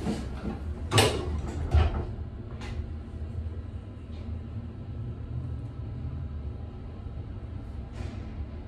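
Northern hydraulic elevator car running between floors: a steady low rumble from the lift machinery, with two loud knocks about one and two seconds in and a lighter click near the end.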